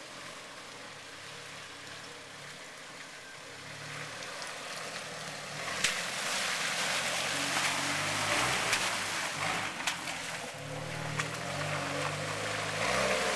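Jeep Wrangler engine pulling at low speed through a muddy water hole, growing louder as it comes close. Muddy water splashes off the tyres, with a few sharp knocks.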